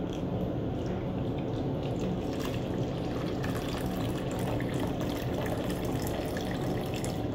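Water pouring from a plastic graduated cylinder into a cut-down 2-liter plastic soda bottle, a steady splashing stream that gets livelier about two seconds in, as the bottle is filled to its 5 cm mark.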